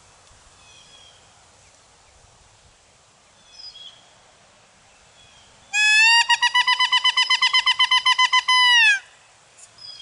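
Woodpecker locator call blown by a turkey hunter to make a tom gobble and give away his position. It sounds as a loud, rapid run of sharp, high notes on one pitch for about three seconds, starting a little past the middle. Faint bird chirps come before it.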